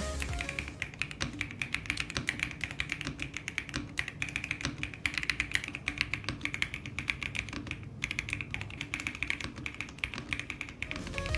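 Fast typing on a Pulsar XBoard QS mechanical keyboard, with rapid, dense keystroke clicks and a brief pause about eight seconds in.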